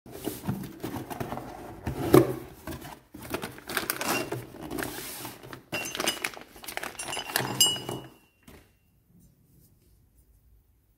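Cardboard box and plastic packaging being handled: flaps opening, then bagged parts pulled out and the plastic bags crinkling as they are unwrapped, with small clicks and rattles. The handling stops about eight seconds in.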